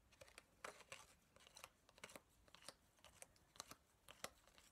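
Faint, irregular soft clicks and short slides of a stack of baseball trading cards being thumbed through by hand, card rubbing against card.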